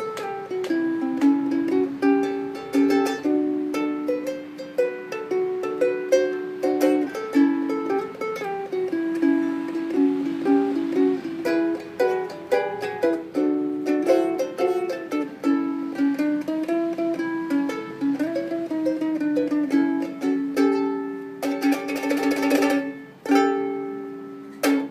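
All-solid-mahogany Honolele ukulele played solo, picking a melody over chords. About 21 seconds in it breaks into a burst of fast strumming, then ends on a chord left to ring.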